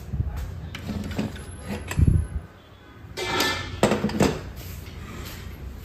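Pigeon pressure cooker's lid and handle being worked by hand: a series of metal clicks and clunks, with one heavier knock about two seconds in and a short clatter of metal between three and four seconds in.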